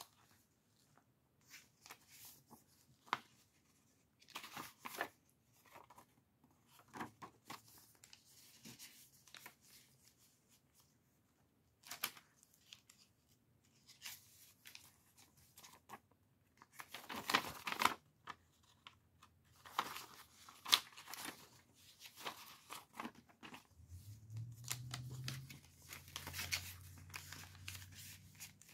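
Paper pages and folded paper inserts of a handmade junk journal being turned and unfolded by hand: irregular rustles, crinkles and light paper clicks. A low steady hum comes in near the end.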